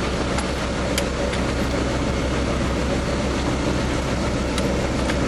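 Engine of a piece of work machinery running steadily at idle, a low even hum, with a few faint clicks in the first second or so.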